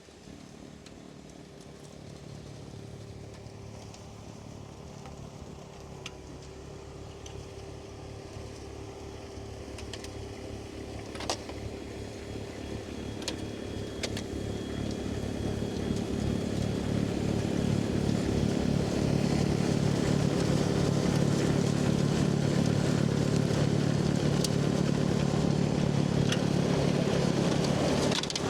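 Kubota tractor running with its rear-mounted snowblower: a steady engine drone that grows louder over the first twenty seconds or so as it comes closer, then holds. A few light clicks sound near the middle.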